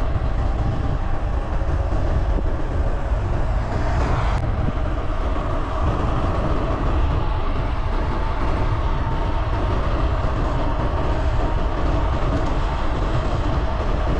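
Steady wind rush buffeting the camera microphone on a fast bicycle descent, mixed with the hum of the tyres rolling on asphalt.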